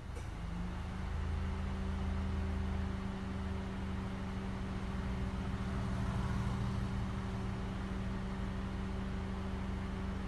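Honda Civic climate-control system: a click, then a steady hum that comes on at once and holds without knocking or clicking, over the low rumble of the running car.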